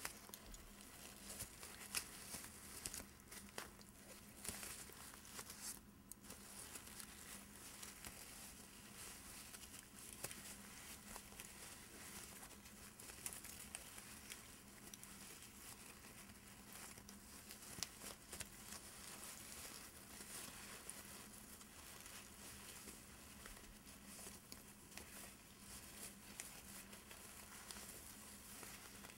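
Fingers rubbing and crinkling the petals of a flower fascinator: faint, irregular soft crinkles and small ticks throughout.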